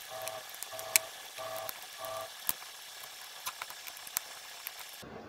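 Small screwdriver turning a screw into the plastic housing of a digital multimeter. Four short squeaks come about half a second apart in the first two seconds, with a few sharp clicks of handling over a steady hiss.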